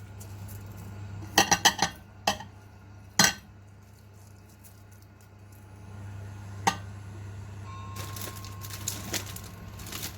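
A metal utensil clinking against a cooking pan while rice is stirred in: a quick run of sharp clinks, then single knocks, with a rustling, scraping stretch near the end. A steady low hum runs underneath.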